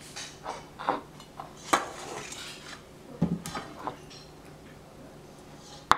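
Dishes and cutlery clinking: several short, light knocks and clinks, the sharpest a little under two seconds in.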